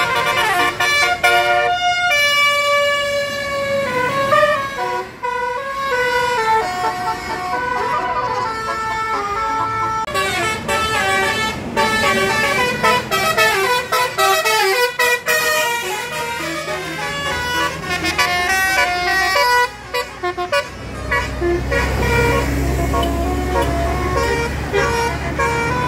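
Bus telolet horn, a Basuri-type multi-tone air horn, playing a tune of stepped notes one after another. Near the end a low engine rumble comes in under the horn.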